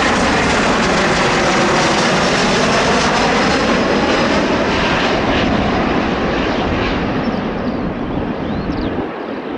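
An airliner passing low overhead on its landing approach: a loud engine roar with a falling whine, fading away over the last few seconds.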